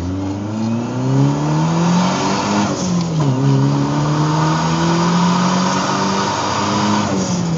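Turbocharged Ford Mustang engine heard from inside the cabin making a wide-open-throttle pull under boost. The revs climb hard in first gear, drop with the shift to second about three seconds in, then climb again more slowly, and fall once more near the end.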